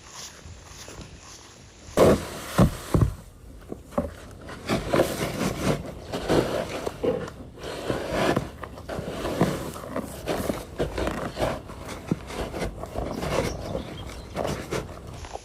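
Animals making rough, repeated noises, with three sharp knocks about two to three seconds in.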